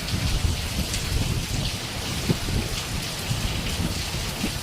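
Heavy rain pouring steadily, a dense patter of drops with one sharper tap a little after two seconds in.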